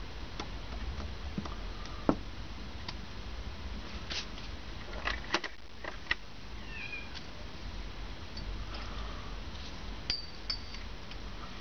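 Scattered clicks and clinks of small steel parts and hand tools handled on a workbench. The loudest knock comes about two seconds in, and a quick cluster follows around five to six seconds in, over a steady low hum.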